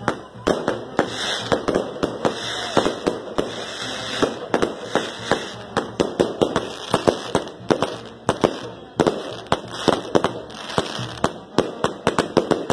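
Fireworks on a burning castillo tower going off in rapid, irregular bangs and crackling pops, several a second, some much louder than the rest.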